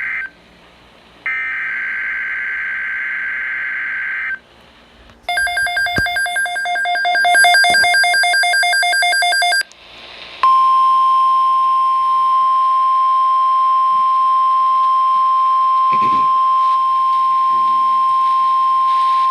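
Emergency Alert System data bursts: screechy digital header tones in two bursts, then a buzzing, rapidly pulsing alert tone for about four seconds, then the NOAA Weather Radio warning alarm, a single steady high tone held for about nine seconds, announcing a new alert.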